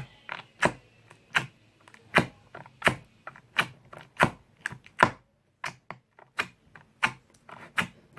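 Clear crystal slime being squeezed and pressed by hand for ASMR, giving sharp clicking pops at a steady pace of about one or two a second.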